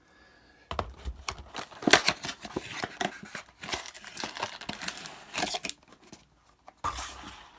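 Trading-card blaster box packaging being torn open and handled: irregular tearing, crinkling and rustling with sharp little clicks.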